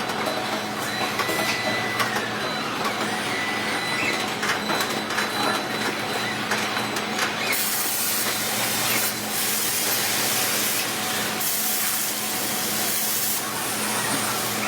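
Steady factory machinery noise in a car-manufacturing shop. From about halfway through come several bursts of hissing, each a second or two long.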